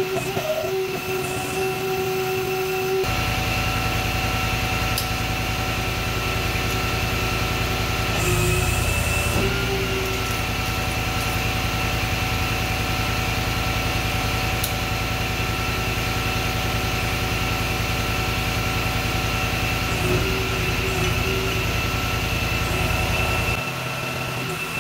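Electric overhead hoist running steadily as it lifts a failed cell out of a 36-volt industrial battery, a low hum under a steady whine. The hoist starts about three seconds in and stops shortly before the end.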